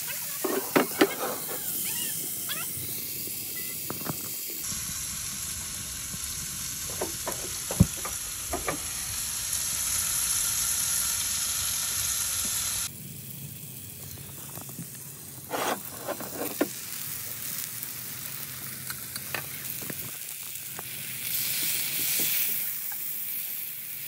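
Beef tenderloin steaks and mushrooms sizzling in a hot cast-iron skillet, a steady hiss with sharp pops and clicks now and then. For several seconds in the middle the hiss is louder and steadier.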